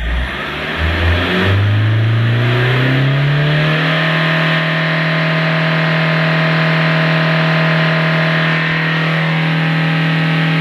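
Mahindra Scorpio S4's turbo-diesel engine revved up from idle, its pitch climbing steadily for about four seconds, then held at high revs near 5,000 rpm. This is a stationary rev test with a new vacuum modulator fitted, to check that the P0234 boost fault is cured.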